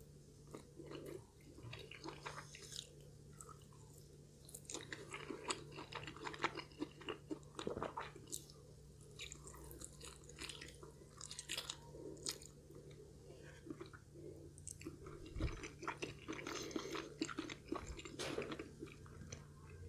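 A person biting into and chewing crispy fried chicken close to the microphone, with irregular crunches and crackles of the fried coating throughout.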